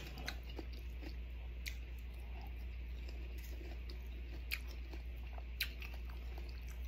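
A person chewing unripe mango, with faint wet mouth sounds and a few light clicks.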